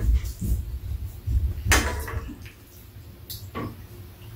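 A metal fork clinking and scraping in a frying pan as food is scooped up, a few sharp clicks about a second or two apart.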